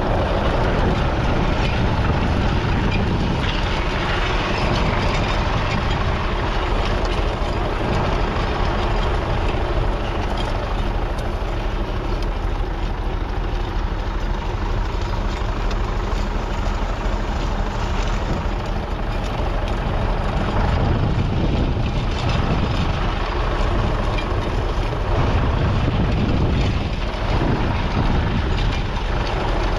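Massey Ferguson 35X's 2.5-litre three-cylinder diesel engine running steadily as the tractor pulls a plough.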